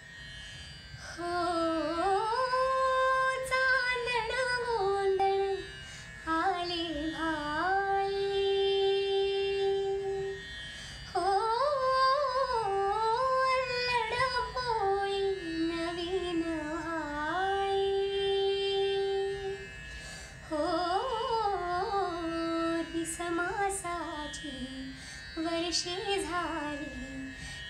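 A woman singing solo, a slow wordless melodic opening in Indian classical style. She holds long notes and slides between them with ornamented turns, in phrases broken by short pauses.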